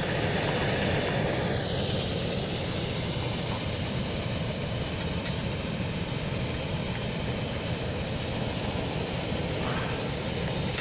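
Pressurized liquid-fuel camp stove burner running steadily at full flame, a constant rushing noise. Its generator coil has heated up, so it is burning hot and clean.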